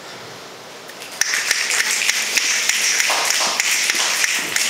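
Audience applauding mid-poem: a dense patter of claps starts about a second in and fades near the end.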